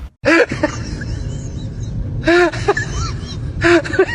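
An animal, a dog or cat, giving a series of short high calls, each rising and falling in pitch, over a steady noisy background.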